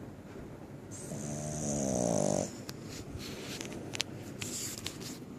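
Snoring: one long snore starts about a second in, rises slightly in pitch and lasts about a second and a half. Several faint clicks follow.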